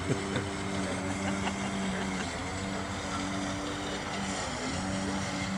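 Recorded engine drone, a steady motor note like a propeller plane or motorboat, played as a sound effect over loudspeakers to get dogs used to noise; its pitch dips briefly about two seconds in and again near the end.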